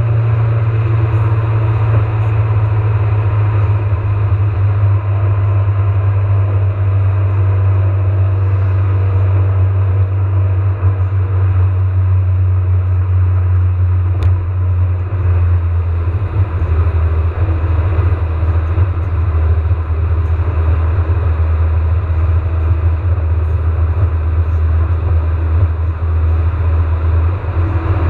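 A car's steady low rumble while cruising on the freeway, heard from inside the cabin: road and engine noise with no let-up.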